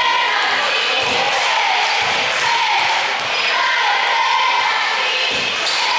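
Basketball bouncing a few times on a hardwood gym floor as a player dribbles before a free throw, with the chatter of a gym crowd throughout.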